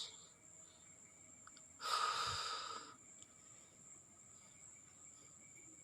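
Toyota Hilux 2.5 diesel injector spraying on a hand-pumped pop tester: one short hiss of about a second, around two seconds in, as the injector opens at about 13 MPa.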